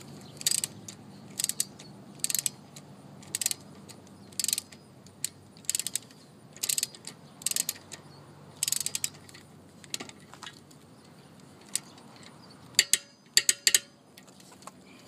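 A ratcheting torque wrench being worked by hand on a wheel bolt, its pawl rattling on each back-swing about once a second. Near the end come a few sharper, louder clicks.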